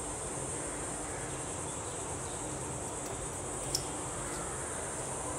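Scissors cutting through a strip of paper masking tape, with one faint snip about three and a half seconds in, over a steady high-pitched background drone.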